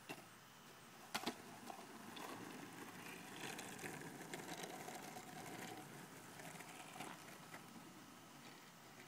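A couple of sharp clacks about a second in, then a longboard's wheels rolling on an asphalt street for several seconds, faint and fading away.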